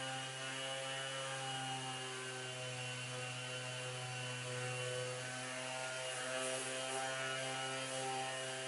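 Electric random orbital sander running steadily against a wooden tabletop edge: an even motor hum with a stack of higher overtones, holding the same pitch throughout.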